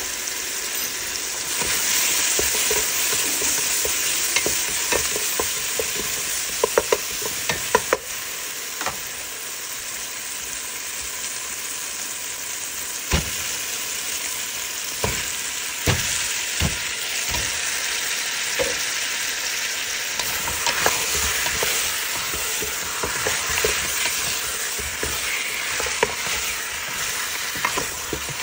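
Chopped tomato, onion and spices sizzling as they fry in a stainless steel pot. A wooden spoon stirs the mix, knocking against the pot now and then, several times in a cluster a few seconds in and again about halfway through.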